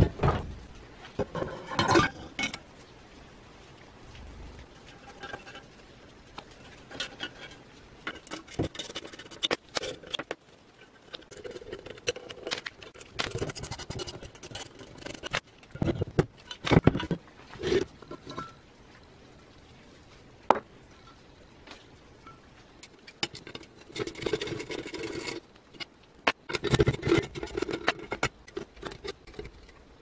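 Metal parts of a rusty cast-iron coffee grinder being handled during disassembly: scattered clinks, knocks and scraping of iron parts against each other and the bench.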